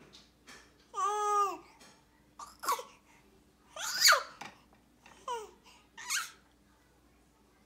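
Baby squawking: one longer, evenly pitched squawk about a second in, then several short, sharp squeals with quiet gaps between them.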